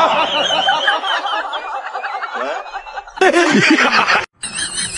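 Snickering, chuckling laughter in quick repeated bursts, which stops abruptly a little after four seconds in.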